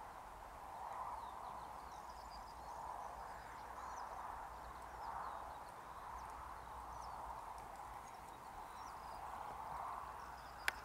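Faint outdoor ambience: a steady hum that swells and fades every second or two, with small birds chirping faintly and high above it. A single sharp click comes near the end.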